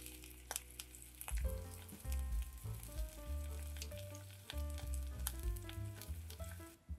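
Mushroom slices sizzling in hot olive oil in a frying pan, a steady hiss with small spitting pops, over background music whose bass line comes in about a second in.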